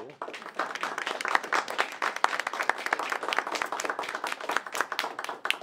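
Audience applauding: many hands clapping in a dense, steady patter that stops about five and a half seconds in.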